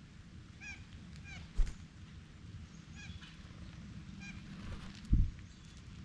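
Blue jays giving a few short, harsh calls scattered through the few seconds. Two dull low thumps, about a second and a half in and near the end, are louder than the calls.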